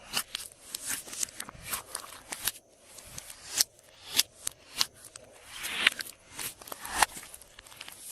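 Glossy slime being mixed and squished by hand, giving sharp sticky clicks and pops, a few each second, with a longer drawn-out squish about six seconds in.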